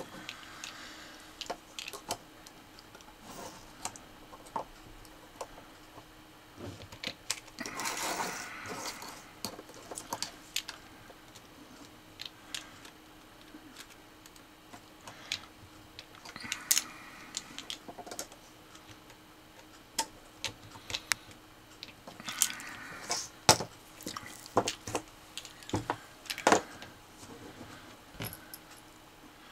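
Scattered light clicks, small metal clinks and a few short scraping rustles from tiny machine screws being driven with a precision screwdriver into a metal robot chassis, and small parts being handled.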